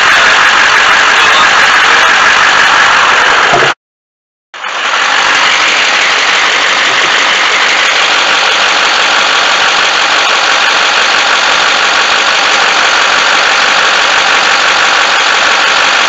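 Duramax V8 turbodiesel of a 2008 Chevy Silverado HD idling under the open hood with the AC compressor running on max, a loud, even rush of engine-bay noise. The sound cuts out completely for just under a second about four seconds in, then comes back unchanged.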